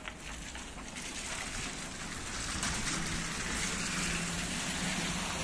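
SVARZ-MAZ-6275 trolleybus moving on wet asphalt: its tyres hiss through the water on the road, getting louder about a second in. A low steady hum joins in about three seconds in.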